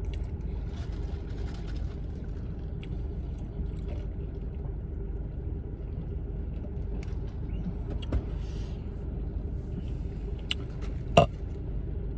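Steady low rumble of a car running while parked, heard from inside the cabin, with a faint steady hum. A few small clicks and taps stand out, the loudest about eleven seconds in.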